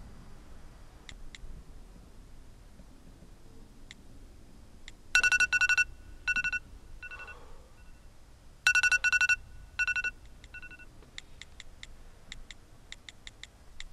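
Smartphone giving short electronic beeps of one steady pitch, in two quick runs of several beeps each, the first about five seconds in and the second nearly four seconds later, each run followed by one or two single beeps. Faint clicks of fingers tapping the screen come in between.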